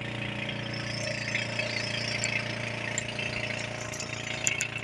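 A small outrigger boat's engine idling steadily, a low even hum. A few faint clicks come near the end.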